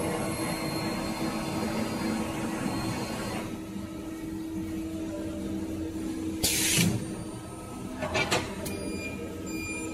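Intercooler core builder machine running with a steady mechanical hum, its noise easing off after about three and a half seconds. A short hiss comes about six and a half seconds in, then a few sharp clicks near eight seconds.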